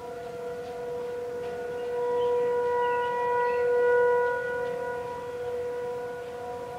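Outdoor tornado warning sirens sounding a steady tone during a test. More than one siren is heard at once, giving two held pitches. The sound swells to its loudest about two to four seconds in and then eases off.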